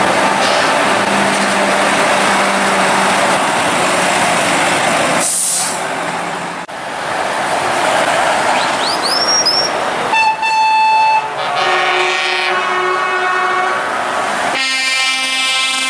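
Heavy trucks passing with their diesel engines running loud, followed by air horns blasting in two or three separate calls of different pitch in the second half.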